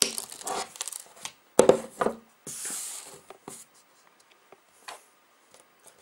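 Clicks and sharp snaps of a crimp tool's cutter trimming the untwisted CAT5 wire ends, the loudest snaps about a second and a half in. A short plastic crinkle follows, then scattered handling clicks.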